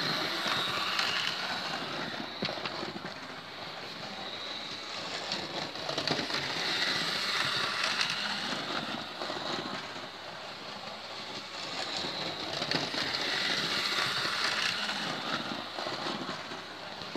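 Hornby model locomotive whirring and rattling along the track, its motor and wheels growing louder and fading about every six to seven seconds as it circles the layout.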